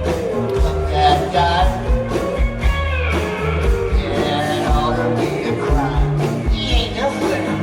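Live rock band playing a bluesy rock song: drums keeping a steady beat under bass and electric guitar, with slide guitar gliding between notes and some singing.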